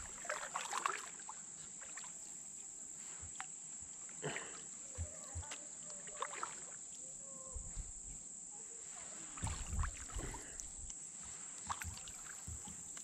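Kayak paddle strokes: the blades dip and splash quietly in calm lake water, with scattered small knocks and drips.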